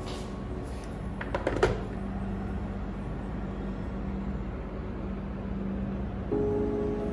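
Stainless-steel-rimmed serving tray set down on a marble tabletop: a short cluster of clicks and one sharper clack about a second and a half in, over soft background music with a held low note.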